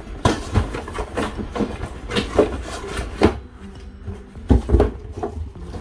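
Cardboard shipping carton being handled: flaps scraping and rustling, a shoebox slid out and set down on the table, then the empty carton knocked aside, giving a run of sharp knocks with the loudest near the end.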